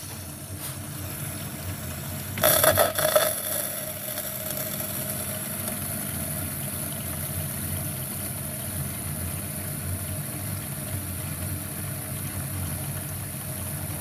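LG dishwasher running its fill, with water flowing in through the inlet valve and air guider assembly as a steady hum and hiss. This is the sign that the inlet valve is getting power and the 'IE' (inlet) fault is cured. A brief louder burst comes about two and a half seconds in.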